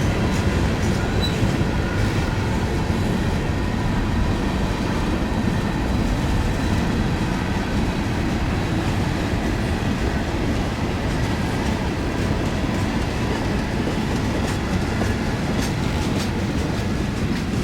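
Freight train rolling past: a steady rumble of steel wheels on rail, with faint high wheel squeal and a few clicks over rail joints near the end.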